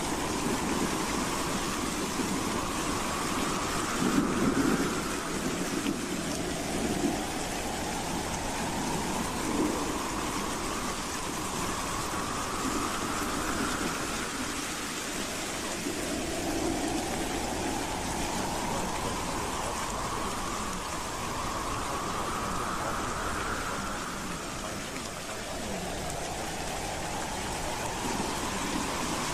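Howling wind over a steady rushing hiss, the howl swelling and rising slowly in pitch about four times, each swell lasting several seconds.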